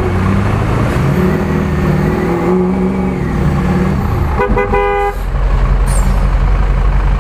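Ford F-250 pickup's engine running while the truck is stuck in deep mud, its pitch shifting up and down. Midway through, a vehicle horn gives a quick run of four or five short toots. After that the engine settles into a deep, steady rumble.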